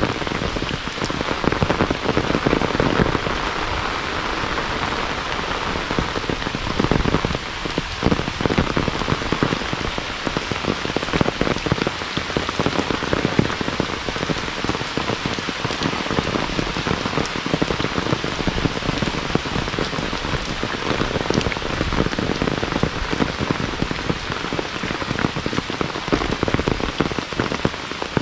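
Heavy rain falling steadily, with a dense spray of close drop impacts throughout.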